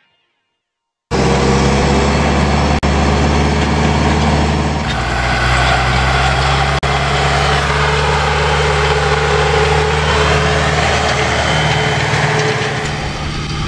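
About a second of silence, then an Ursus 1012 tractor's diesel engine running steadily under load as it pulls a disc harrow. The engine note shifts a couple of times, with brief drops, as the shots change.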